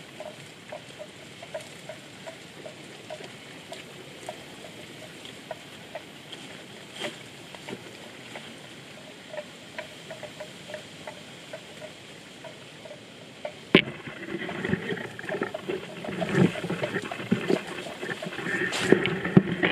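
Water buffalo grazing: soft, evenly spaced ticks of grass being cropped over a low hush. A sharp click comes about two-thirds of the way in, followed by louder, irregular rustling and knocks.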